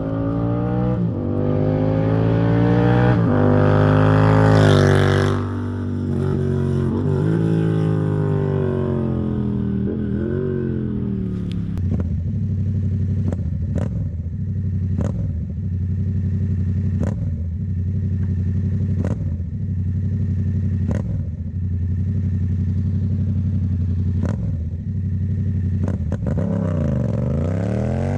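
A 2017 Yamaha MT-07 (FZ-07) parallel-twin runs through a Black Widow full-system exhaust with the baffle removed, super loud. It accelerates with the pitch rising for about five seconds, then drops off and slows. From about twelve seconds it gives a string of short, sharp throttle blips every second and a half to two seconds, each falling away after, and the revs dip and climb again near the end.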